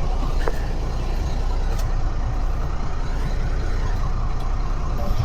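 Parasail boat's engine running steadily, a low rumble under an even rushing noise.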